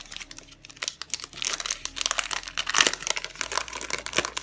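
Foil wrapper of a Panini Select Draft Picks trading-card pack crinkling and crackling as it is handled and pulled open, densest around the middle.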